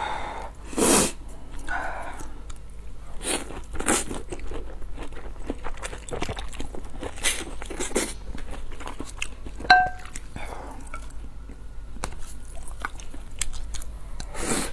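Close-miked eating sounds: chewing and smacking mouth noises with irregular small clicks. About two-thirds through there is one short ringing clink of tableware, and near the end louder eating sounds as food is taken from the rim of a lifted bowl.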